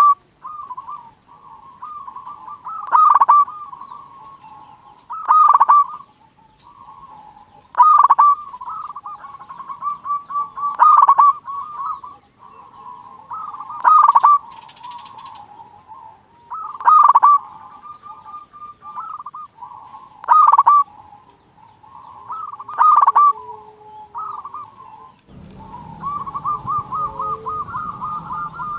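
Zebra doves (perkutut) cooing: a loud, distorted song phrase about every three seconds, with softer rapid cooing between the phrases. Near the end the background changes and a quicker run of cooing begins.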